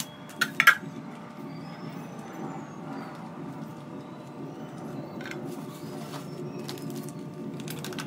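Sharp plastic clicks about half a second in as a robot vacuum's clear plastic dust bin and filter are handled, then quieter handling noises over a steady low hum.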